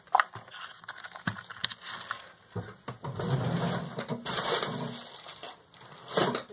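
Hands handling a small hobby RC car and its loose parts on a cutting mat: scattered clicks and knocks, with a stretch of rustling and shuffling in the middle.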